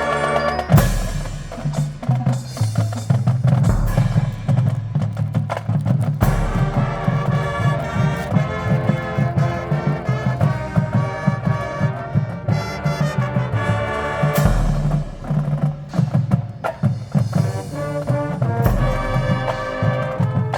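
Marching band playing: brass chords held over a drumline, with several heavy low bass-drum hits.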